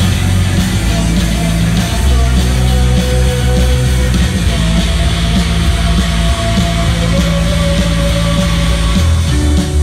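Live rock band playing a loud, distorted instrumental passage on electric guitars, bass guitar and drums, with long held guitar notes over a steady low end.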